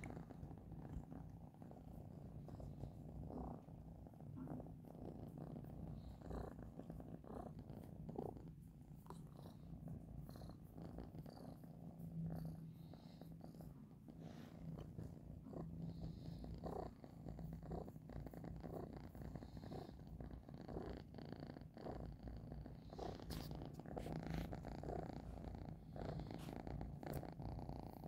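Domestic cat purring steadily, a low continuous rumble, while being stroked, with soft scattered rustles and clicks of the hand moving over fur and bedding.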